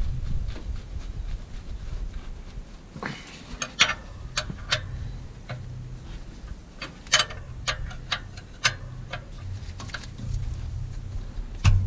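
Irregular sharp metal clicks of a wrench working the oil pan drain plug loose, over a steady low hum.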